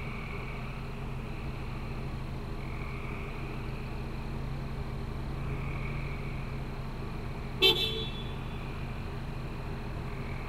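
A car horn gives one short toot about three-quarters of the way through, over a steady low hum.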